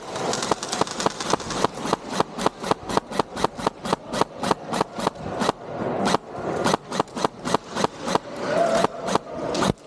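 Airsoft guns firing a fast string of sharp cracks, about five or six a second, with a couple of short pauses.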